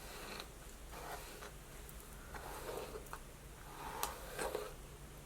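Hairbrush bristles pulled through long, dry, freshly set hair: a string of soft brushing strokes at an uneven pace, roughly one or two a second.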